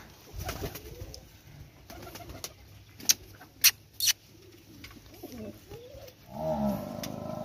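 Domestic pigeons cooing softly, with three sharp clicks around the middle and a louder drawn-out sound near the end.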